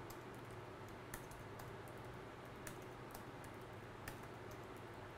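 A few faint, widely spaced computer keyboard keystrokes, roughly one a second, over a steady low hum.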